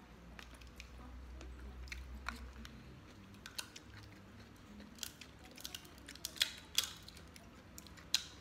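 Cooked lobster shell being cut and cracked with kitchen scissors: sharp clicks and snaps, a few early on and a quick run of louder cracks in the second half, among eating sounds.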